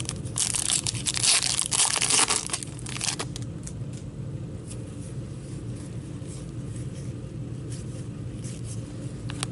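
A foil hockey-card pack wrapper is torn open and crinkled for about three seconds. After that come quieter ticks of the cards being handled and flipped, over a steady low hum.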